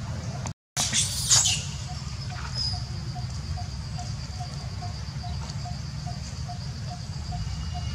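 A long-tailed macaque gives a brief high-pitched squeal about a second in, over a steady low background rumble. A faint high insect-like buzz and faint regular chirps, about two or three a second, run underneath.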